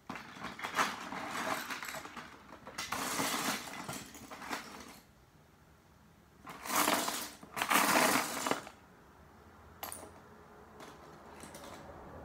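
Loose Lego bricks clattering and clinking in a plastic storage box as a hand rummages through them, in bursts, loudest from about six and a half to eight and a half seconds in.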